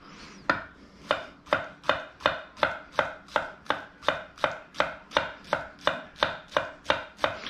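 Chef's knife chopping a shallot into a fine dice on a wooden cutting board: a steady rhythm of about three crisp knife strikes a second on the board, starting about half a second in.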